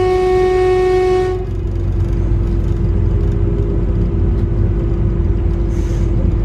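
Newag Impuls 2 electric multiple unit heard from inside a car as it slows for a station stop. Its traction drive whines in a set of steady tones that cut out about a second and a half in, leaving a single steady hum over the low running rumble. A short hiss comes near the end.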